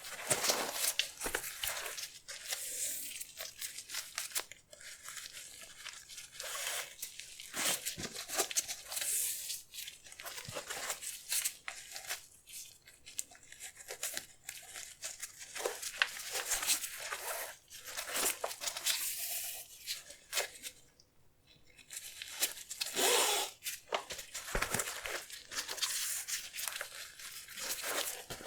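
Paper crinkling and rustling, with short tearing and crackling sounds, as packing paper is handled and pulled during a sneaker unboxing. The sounds are irregular, with a brief pause a little past two-thirds of the way through.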